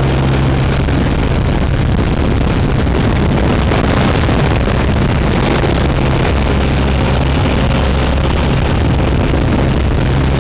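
Light single-engine airplane's piston engine and propeller running at full power during takeoff and climb, heard from inside the cabin as a loud, steady drone.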